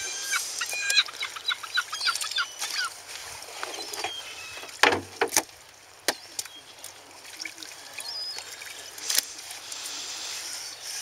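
Birds chirping in rapid short calls through the first few seconds, over the splash and slosh of fish being handled in a bucket of water. A loud knock about five seconds in, then a few sharp clicks.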